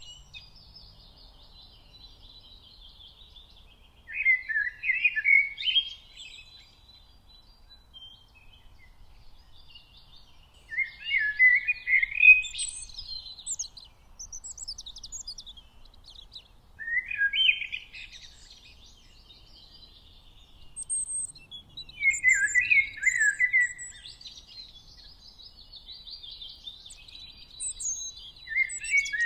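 Birds singing and chirping in a park. A louder warbled song phrase of about two seconds comes five times, roughly every six seconds, over steady fainter high-pitched chirping from other birds.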